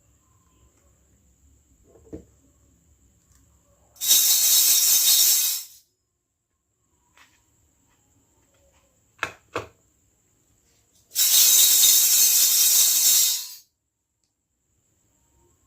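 Two loud hisses of about two seconds each, with two sharp clicks close together between them and a faint tap early on.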